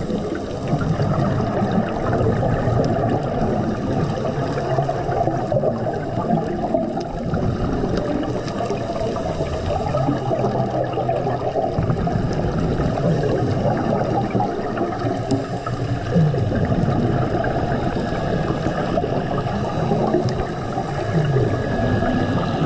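Water gurgling and churning steadily, muffled as heard by a camera underwater.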